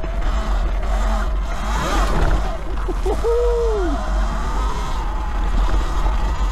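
72V E-Ride Pro SS electric dirt bike's motor whining while riding a trail, its pitch rising and falling with the throttle, with a clear swoop up and back down about three seconds in. A heavy low wind rumble on the camera microphone runs underneath.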